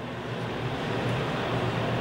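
Steady hangar background noise: a low hum under a broad hiss, fading up over the first second and then holding level.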